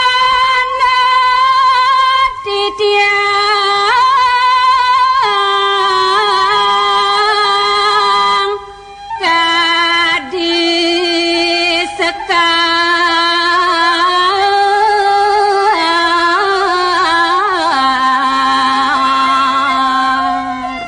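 A single voice singing a slow Balinese devotional chant, with long held notes and wavering ornaments. It pauses briefly between phrases about two and a half and eight and a half seconds in.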